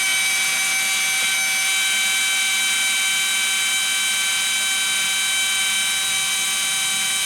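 HP LaserJet M1005 printer running a steady mechanical whir with a whine of several fixed tones, unchanging throughout. It is stuck in continuous initialization, which the repairer puts down to a fault in the scanner, its motor or its cable.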